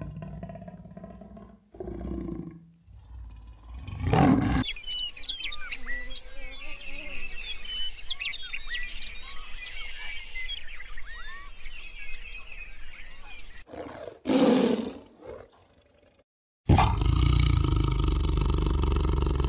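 Big-cat growls and roars, broken by a long stretch of birds chirping in the middle. Near the end comes the loudest part: a long, steady, deep tiger growl.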